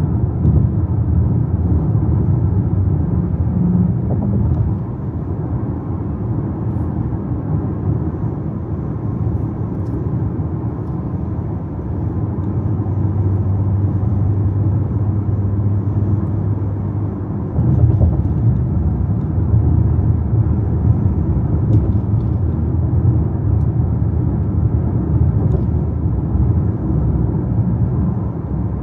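A car being driven, with a steady low rumble of road and engine noise. The rumble drops a little about five seconds in and comes back up a little after halfway.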